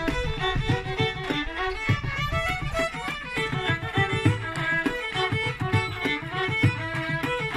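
Two fiddles playing a lively Irish traditional dance tune in unison, with a bodhrán beating a steady rhythm underneath.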